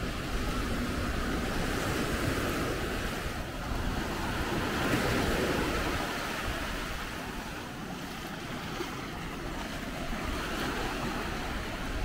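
Sea waves breaking and washing up on a beach, with wind rumbling on the microphone; one wave swells up louder about five seconds in.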